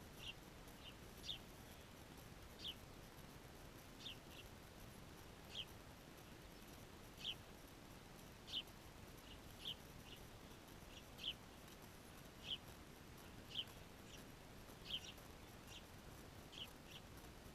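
Small songbirds giving short, high chirps, singly or in quick pairs, about once a second over faint background hiss.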